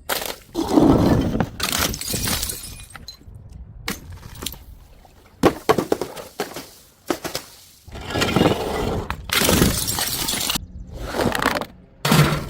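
Glass bottles smashing one after another, several separate crashes, each followed by shards tinkling and scattering.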